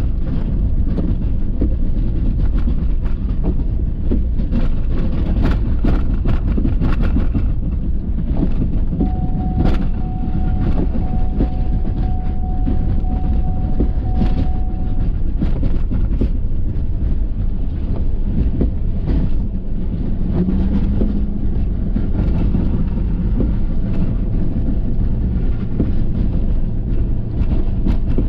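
Ford F-350 pickup with a Boss snow plow driving and plowing snow: a loud, steady low rumble with scattered knocks and rattles. A thin steady whine sounds for several seconds near the middle.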